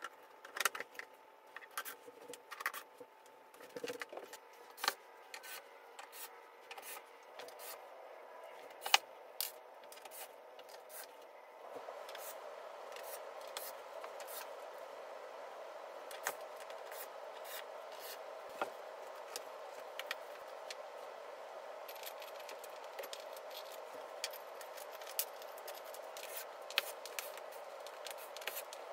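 Hands working flat-pack particleboard furniture panels and small metal hardware: scattered clicks, knocks and light scraping, with a hand screwdriver turning a screw near the end. A steady background hum sets in about twelve seconds in.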